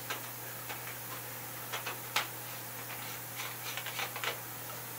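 Scattered light clicks and ticks of an aluminum cap being screwed by hand onto a Vortec cold air gun's tube, over a faint steady hum.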